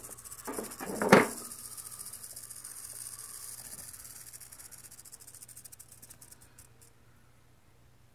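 Great Basin rattlesnake rattling its tail, a rapid high buzz that fades out after about seven seconds: a defensive warning. A few knocks in the first second or so, the loudest about a second in, as a stick pokes among the rocks.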